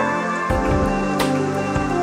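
Background music: a calm instrumental track of held chords that change about half a second in, with a soft percussive hit near the middle.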